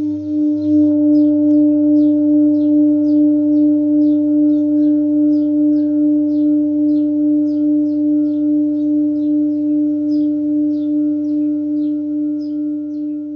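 Handmade seven-metal Himalayan singing bowl, the Sol bowl of the set, ringing out with one steady tone and a few higher overtones. Its loudness wobbles in slow beats about twice a second as it fades gradually.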